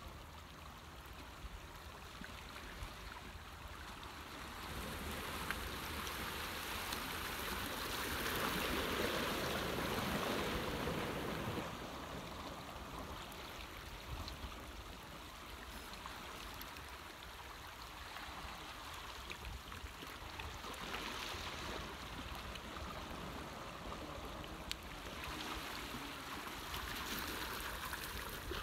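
Seawater washing and trickling with no spoken words, swelling for several seconds about a third of the way in, then easing off and swelling again more gently twice later.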